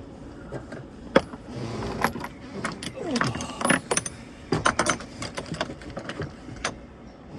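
Metal spanners clinking and clattering against each other as a set of spanners is sorted through by hand to find a bigger size, in irregular sharp knocks and jingles.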